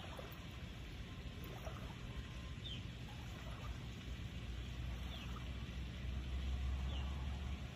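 Low wind rumble on the microphone that swells for a couple of seconds near the end, with faint, short falling chirps from a bird every second or so.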